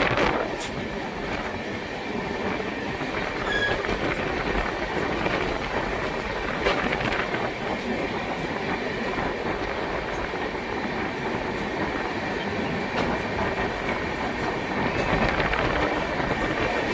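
Passenger train running on the rails: a steady rumble with a few clicks of the wheels over rail joints.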